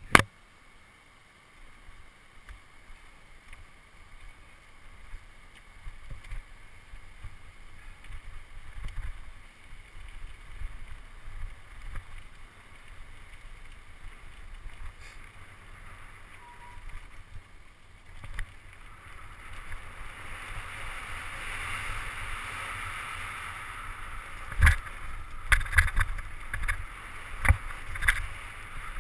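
Mountain bike rolling downhill over a loose gravel trail: tyres crunching on stones under a steady rumble of wind buffeting the bike-mounted camera. Past the middle the gravel hiss grows louder, and near the end a handful of sharp knocks come as the bike jolts over rocks.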